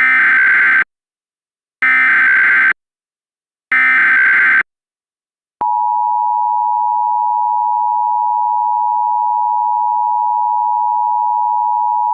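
Emergency Alert System SAME header: three harsh digital data bursts, each just under a second long. About five and a half seconds in, the EAS attention signal starts: a steady two-tone 853 and 960 Hz tone that runs on past the end.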